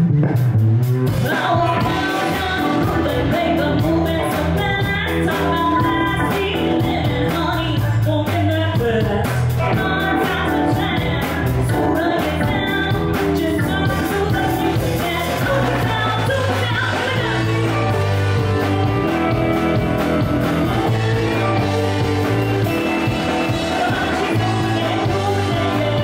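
Live funk band playing, with a woman singing lead over electric guitar, bass guitar, drum kit and keyboard.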